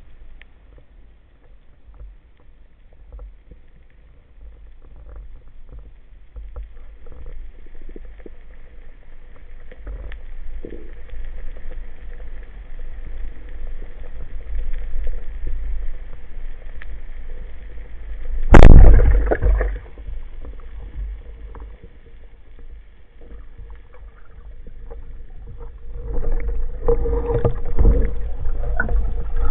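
Underwater sound through a camera housing on a speargun: a steady low water rumble with faint ticks, then about two-thirds of the way through one sharp, very loud crack with a short rattle after it, the speargun firing. Near the end, louder rustling and rumbling follows.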